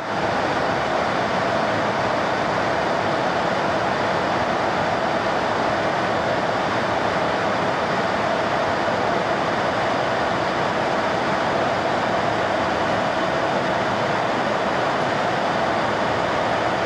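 Steady drone of jet engines and rushing air heard from inside the cabin of a large jet aircraft in flight, even and unchanging throughout.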